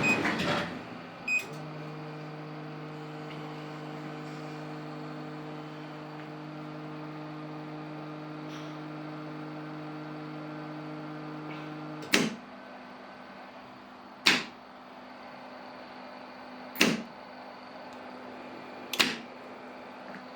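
Repaired 2000-watt IPL epilation device power supply under test. A rushing noise dies away at the start, and after a click it settles into a steady electrical hum. In the second half the hum drops lower and four sharp snaps come about two seconds apart.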